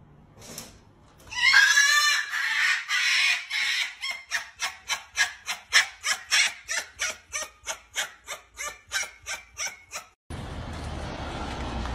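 Red fox calling while being rubbed: a drawn-out wavering cry, then a rhythmic string of short high calls, about three a second.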